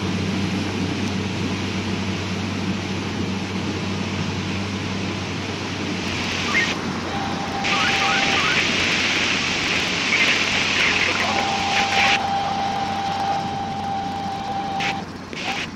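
Canal cruiser's engine running with a low hum over churning water and hiss. A brighter hiss sets in about halfway and cuts off sharply, and a thin steady high tone sounds twice in the second half.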